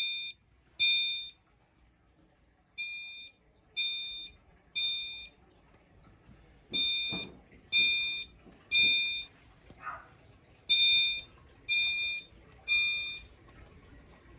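System Sensor Spectralert Advance chime strobe sounding on low volume in the temporal code-3 pattern: three half-second chimes that fade, a pause of about a second and a half, then again. This is the fire alarm evacuation signal after a pull station has been pulled.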